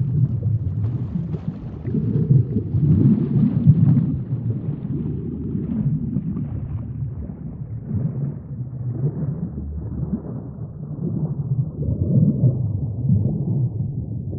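Underwater sea ambience: a low, muffled rumble of moving water that swells and eases irregularly, growing duller toward the end.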